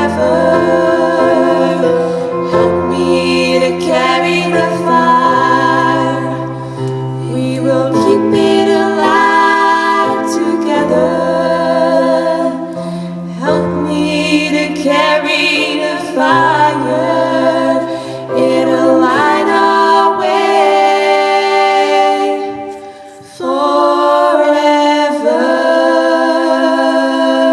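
Music: a song's closing passage of voices singing long held chords in harmony over low bass notes, without clear words.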